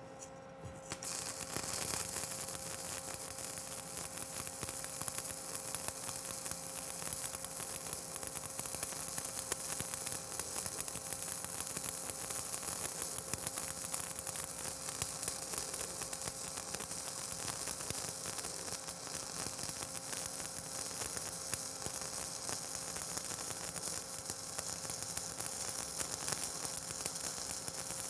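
Stick-welding arc of a 7018 electrode running a vertical-up (3G) fill pass on steel plate, sizzling steadily from the moment it is struck about a second in.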